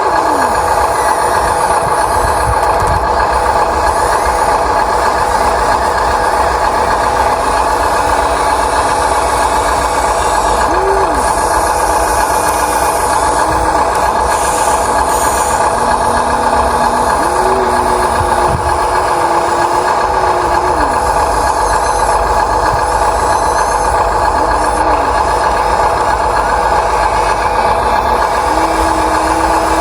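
Radio-controlled model excavator and dump truck working, with a steady whine and shorter motor whines that start, stop and change pitch every few seconds as the machine moves.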